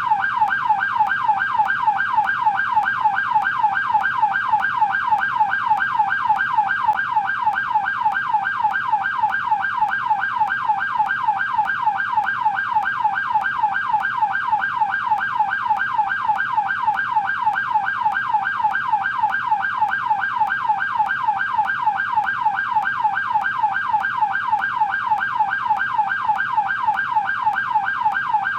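American police car's electronic yelp siren, its pitch sweeping up and down rapidly, several times a second, at a steady, even pace.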